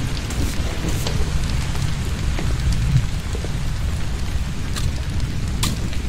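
Torrential rain falling steadily, an even hiss over a deep low rumble, with scattered sharp drops striking close by and a louder drop near the end.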